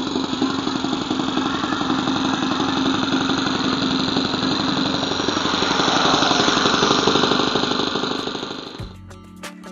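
Saito FA-62 four-stroke glow engine of an RC Piper J3 Cub idling steadily on the ground, still running with under a quarter tank left, fed through a felt fuel clunk. It grows louder for a few seconds past the middle, then fades out near the end as music starts.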